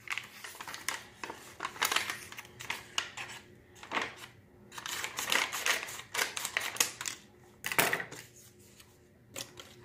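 Scissors snipping open a packet, with the packet crinkling as it is handled: a run of short crisp cuts and rustles that dies down near the end.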